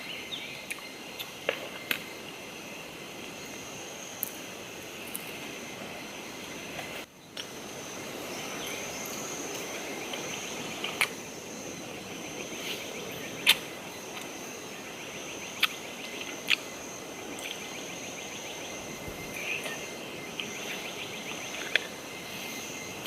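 Forest insects chirring steadily in high continuous bands, with scattered sharp clicks and knocks over them. The sound drops out briefly about seven seconds in.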